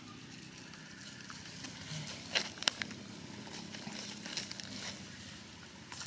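Outdoor woodland ambience, a steady faint hiss, with a few sharp clicks or snaps about two and a half seconds in.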